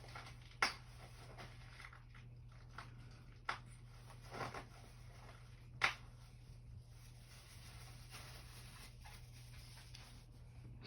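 Quiet room with a steady low hum and a few faint, scattered clicks and handling noises.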